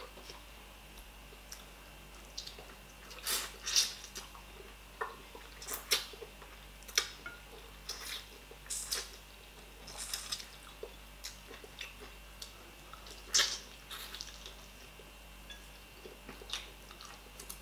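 A person eating fish head and stockfish by hand: irregular chewing and sucking mouth sounds with sharp smacks, two of them louder, a few seconds in and again past the middle.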